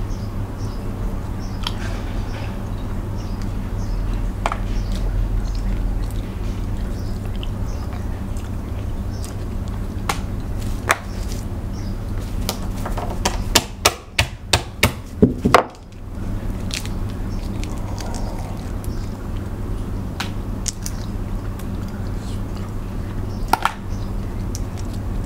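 Seafood shells being picked apart and eaten by hand: scattered small cracks and clicks of shell, with a quick run of about seven sharp cracks about halfway through. A steady low hum runs underneath.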